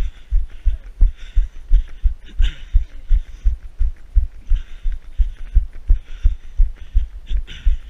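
Footfalls of a runner, heard as even low thumps about three a second through a body-worn camera, with bursts of higher hiss between them.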